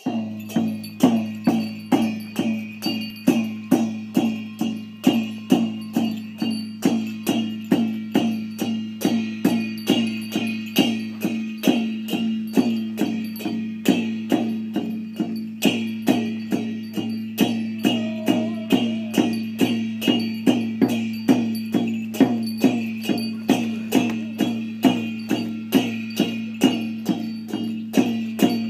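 Achi Lhamo dance accompaniment: drum and cymbals beating a steady rhythm of about two strokes a second, each stroke ringing briefly, over a constant low tone.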